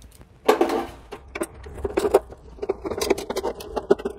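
Hand driver with a socket tip turning out the single screw that holds a Whirlpool Cabrio dryer's sheet-metal heating-element canister. After a handling clatter about half a second in, it gives a run of small, irregular metallic clicks and scrapes.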